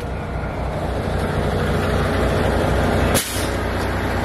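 Tractor-trailer's diesel engine idling steadily, growing louder over the first couple of seconds. A brief sharp burst about three seconds in.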